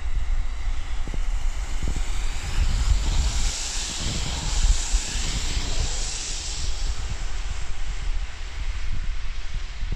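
Road traffic on wet asphalt: a vehicle's tyres hiss on the wet road as it passes close, swelling from about three seconds in and fading after about seven, over a steady low rumble.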